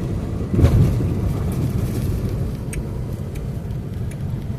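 Steady low rumble of a car's road and engine noise inside the cabin, with a brief louder thump about half a second in and a few faint clicks.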